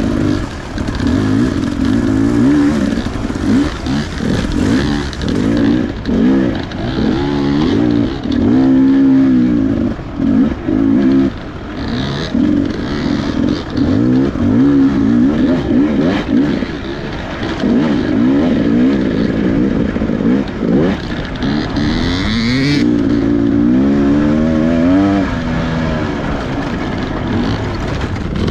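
Off-road dirt bike engine revving up and down as the throttle opens and closes along the trail, rising and falling in pitch again and again with short drops between.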